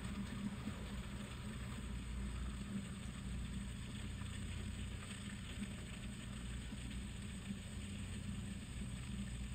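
Room tone: a steady low hum with a faint even hiss, and no distinct events.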